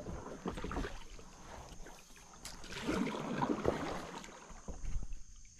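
Kayak paddle strokes splashing and dripping in river water, with a few light sharp knocks. It gets louder and splashier about halfway through.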